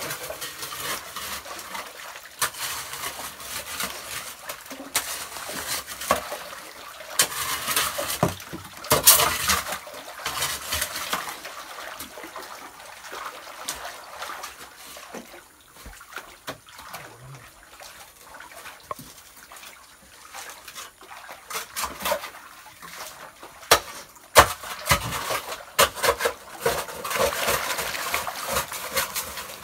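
Muddy water splashing and sloshing as people wade and work by hand in a flooded dig pit, with scattered knocks. It is louder for a few seconds about a quarter of the way in and again near the end.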